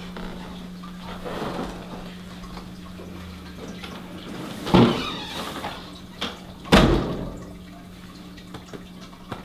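A door being handled and shut: two sharp knocks about two seconds apart, the second the heavier, over a steady low hum.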